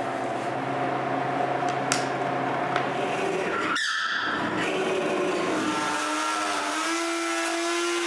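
Power tools cutting a mortise in a wooden beam: a drill press boring, then a router with a template guide cleaning out the mortise. The sound runs steadily, breaks off sharply just before halfway, and the second machine follows with its pitch rising in steps near the end.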